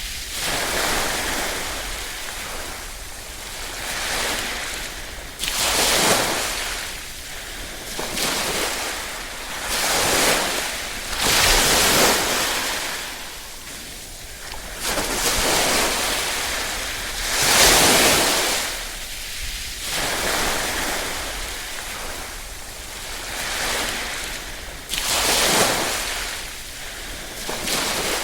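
Gentle small waves lapping on the shore, coming in as a rush of hiss that swells and falls away every few seconds.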